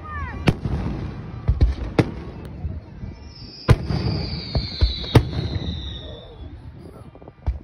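Fireworks display: aerial shells bursting in a string of sharp bangs, about eight, over a low rumble. Through the middle a high whistle slowly falls in pitch.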